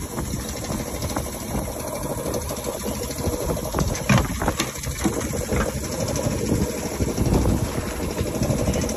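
A small engine running steadily at idle aboard a wooden boat, with a few sharp knocks about four seconds in.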